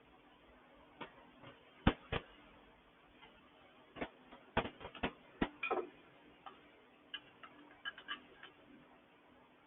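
Irregular light clicks and taps of small metal engine valve parts being handled and set in place, about a dozen in all, the loudest pair about two seconds in and a few with a brief metallic ring.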